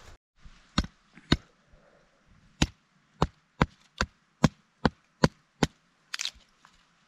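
Wood being chopped. Two blows land about a second in, then eight sharp, evenly spaced blows come at about two and a half a second. A rougher cracking strike follows near the end.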